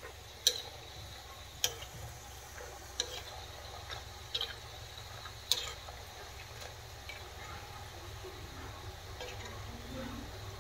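Dough snacks deep-frying in hot oil in an iron kadhai, a steady sizzle, with a metal spoon clinking sharply against the pan about five times in the first six seconds as the pieces are stirred.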